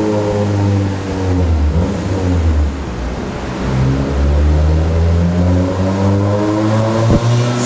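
Turbocharged Honda B20B four-cylinder engine in a Civic EK running on a chassis dyno, heard from inside the cabin: the revs fall away over the first couple of seconds, hold low, then climb again as the engine is brought back up. One brief sharp crack near the end.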